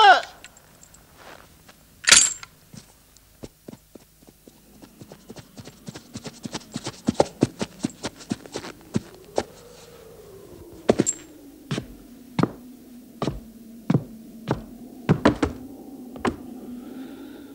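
A sharp knock about two seconds in. Then the hoofbeats of a galloping horse on packed snow, followed by repeated knocking on a wooden door, single and double raps about a second apart.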